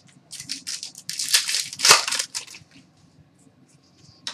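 Foil wrapper of a 2007-08 SP Authentic hockey card pack being torn open and crinkled, a run of rustling tears lasting about two seconds and loudest near the middle.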